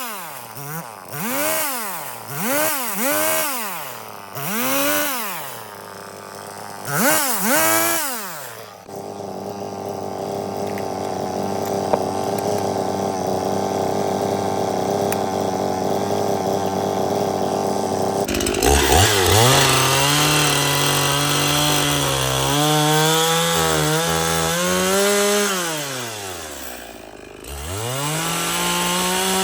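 Chainsaw engine revved up and down in quick swells several times, then held at a steady pitch. About halfway through it drops in pitch and runs with a hiss as the chain cuts into the wood of a log. Near the end the revs sag and then pick up again.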